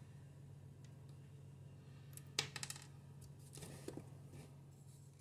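Plastic parts of an under-cabinet fluorescent light fitting being handled: one sharp click about halfway through, then a quick rattle of small clicks and a few lighter knocks, over a steady low hum.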